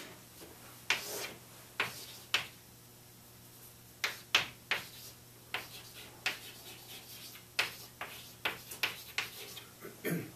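Chalk writing on a blackboard: a string of sharp, irregular taps and short scratches as the stick strikes and drags across the board.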